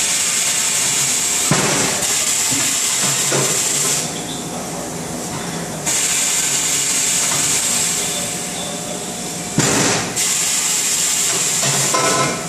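Compressed air hissing in three long bursts of a few seconds each at a rim-clamp tyre changer, with a sharp knock of metal about ten seconds in.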